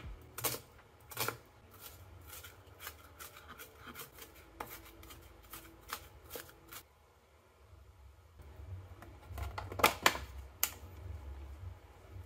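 Chef's knife chopping red onion on a plastic cutting board: an irregular run of quick knocks that stops about seven seconds in. A few louder sharp clicks follow about ten seconds in.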